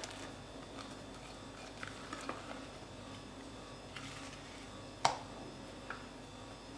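Light, scattered clicks and scrapes of a wooden spatula spreading whipped cream in a foil-lined pan, with one sharper tap about five seconds in.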